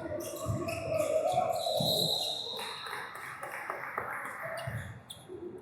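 Basketball game in a gym: a ball bouncing on the hardwood in scattered thumps, voices calling and shouting in the echoing hall, and a brief high squeak about two seconds in.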